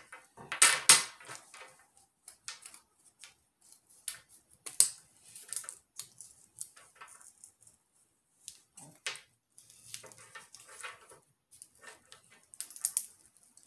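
Scissors snipping and clicking through a stiff toy snake in a run of irregular cuts with short pauses; the scissors are dull and struggle to get through.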